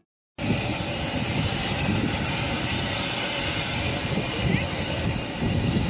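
After a brief silence, outdoor wind noise sets in suddenly on the microphone: an uneven low rumble over a steady hiss, recorded beside a steaming hot spring.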